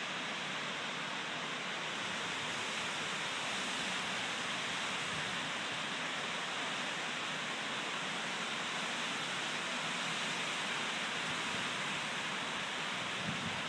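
Storm-force wind rushing through tall trees, a steady even hiss with no single gust standing out.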